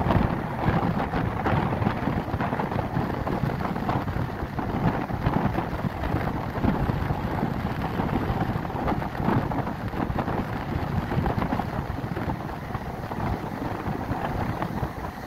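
Strong wind buffeting the microphone in irregular gusts, over the steady wash of rough surf breaking on a rocky shore.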